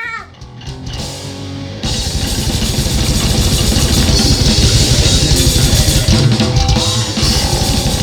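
Heavy metal music with a pounding drum kit and guitar, starting quieter and kicking in at full band about two seconds in.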